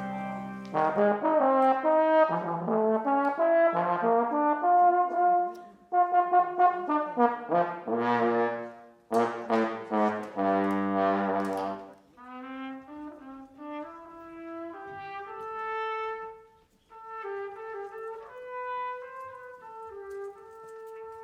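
Brass instruments playing during a band's sound check: loud, full phrases for about the first twelve seconds, then a quieter single melodic line.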